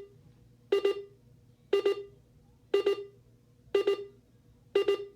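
Alarm clock of an AlertWorks EAR10 weather radio going off: a double beep repeating about once a second.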